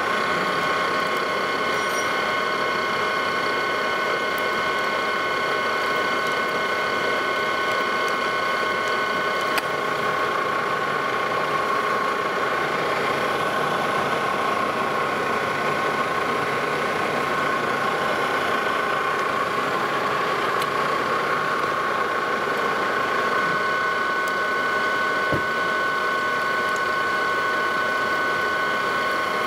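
Lodge & Shipley metal lathe running under a cut as the tool turns down the diameter of a round workpiece. It runs steadily, with a whine of several held tones over the machining noise.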